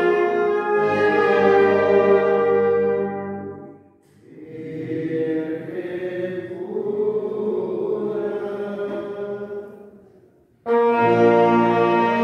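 Brass band music: loud held chords that fade out about four seconds in, a softer passage, then the band coming back in loudly and suddenly near the end.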